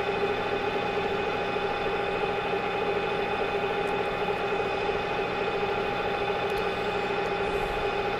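Metal lathe running steadily at a high spindle speed, its drive giving a constant hum with several steady pitches, while the tool takes a light finishing cut along a mild steel shaft as the carriage is fed slowly by hand.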